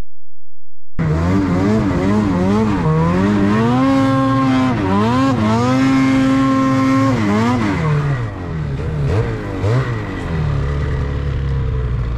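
Snowmobile engine revving up and down while the sled is ridden through deep powder. It starts about a second in, its pitch climbing and falling again and again. It holds high for a couple of seconds around the middle, then drops back and wavers near the end.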